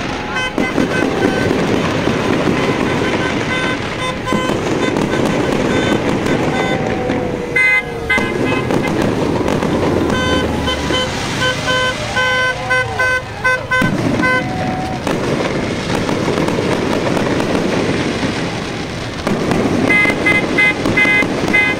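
Aerial fireworks crackling and popping without a break. Vehicle horns honk over them in runs of short toots, most around the middle and again near the end.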